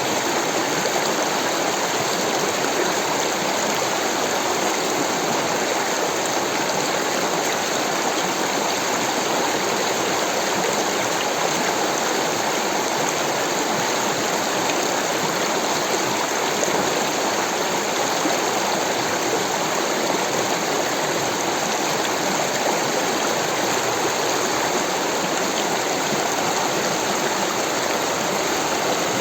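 Rushing water, a steady, even rush with no change.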